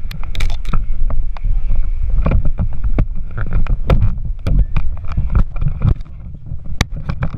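Wind buffeting a body-worn camera's microphone as a steady low rumble, with a string of sharp knocks and scuffs from the wearer moving and clambering over the rocks.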